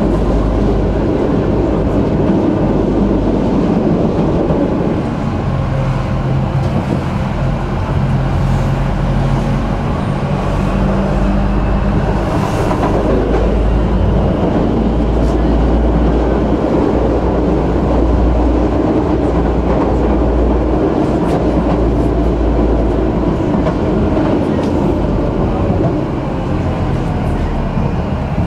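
A tram riding along its rails, heard from on board: a steady loud rumble of steel wheels on track with a low hum from the running gear.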